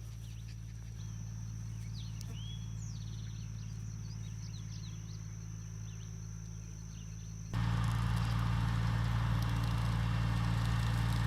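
A tractor engine running steadily with a low drone, and a few faint bird chirps. About three-quarters of the way through, the sound jumps abruptly louder and hissier.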